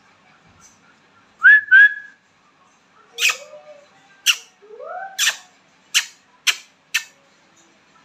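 Alexandrine parakeet giving two quick rising whistles, the loudest sounds, then a string of short sharp calls mixed with a couple of lower gliding, voice-like sounds.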